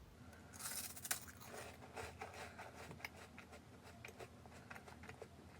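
Plastic snack wrapper rustling and crinkling as it is handled, with a short rush about half a second in followed by scattered crackles.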